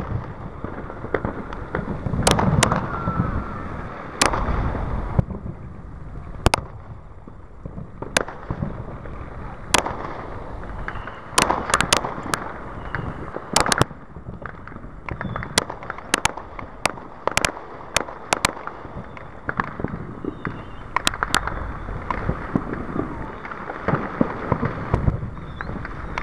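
Aerial fireworks bursting: a long, irregular series of sharp bangs and pops, some single and some in quick clusters of two or three, over a steady background rumble.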